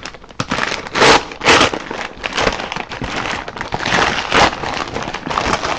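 Brown paper packaging being pulled open and handled, with an irregular run of crackles and crinkles, the loudest about a second in.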